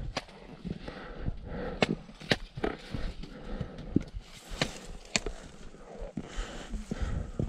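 A hiker's steps on a rocky trail, with trekking-pole tips clicking sharply against the stones about twice a second over dull footfalls.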